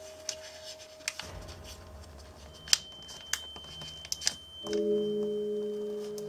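Origami paper being creased and pressed by fingers: several short sharp crackles and clicks, the loudest about halfway through. Soft background music with held notes runs under it and changes to a new chord about two-thirds of the way in.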